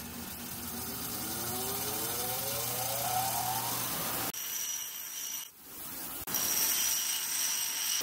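Porter-Cable bench grinder switched on, its motor spinning up with a whine that rises over about four seconds. After a couple of breaks it runs at speed with a steady high-pitched whine.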